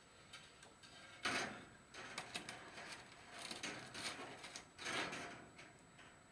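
Chicken wire mesh rustling and scraping as it is bent and twisted by hand, in several short bursts with small clicks, the loudest about a second in.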